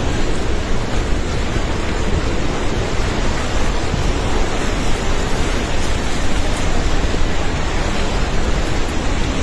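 A river in flood rushing: a loud, steady, unbroken rush of fast water.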